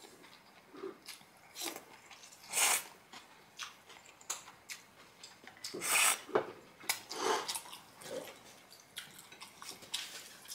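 A person slurping and chewing cold noodles in broth, eaten with chopsticks. There are several short slurps, the loudest about two and a half seconds in and again about six seconds in, with quieter mouth and chopstick sounds between them.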